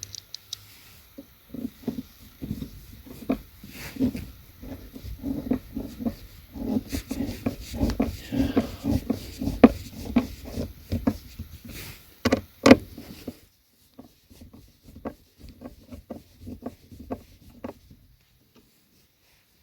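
Screws being driven by hand into the plastic console lid: a run of irregular clicks, creaks and rubbing of screwdriver, screw and plastic. It gets quieter and sparser about two-thirds of the way through.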